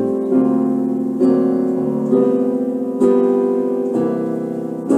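Keyboard playing a slow jazz ballad accompaniment between sung lines: a chord is struck about every second and rings out, fading before the next.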